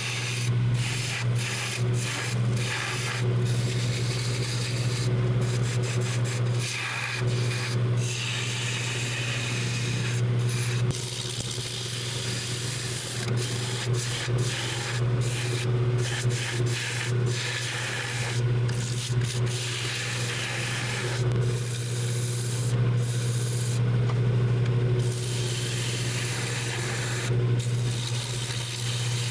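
Jet wood lathe running with a steady motor hum while a gouge cuts the spinning wooden blank: a rough, hissing scrape of shavings coming off that breaks off briefly many times and resumes.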